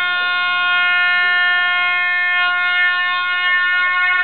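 Air-horn sound effect from an air horn app, played through an iPod Touch 4th generation's built-in speaker: one long, steady blast at a single pitch.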